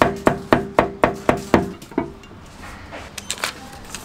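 Cleaver chopping braised pork and green peppers on an iron griddle, about four strikes a second, each blade strike ringing off the metal; the chopping stops about two seconds in, followed by a few light taps.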